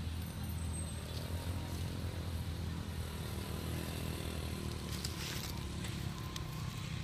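A steady low rumble runs underneath, with a short rustle and crackle of dry fallen leaves about five seconds in as a macaque forages through them.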